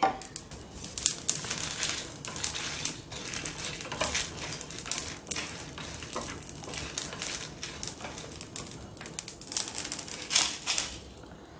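Whole spices (coriander seeds, cumin, dried red chillies, cardamom and cinnamon) rattling and scraping in a dry non-stick pan as they are stirred with a spatula while dry-roasting: a dense, irregular run of small clicks. Near the end the spices are tipped out of the pan onto a plastic plate.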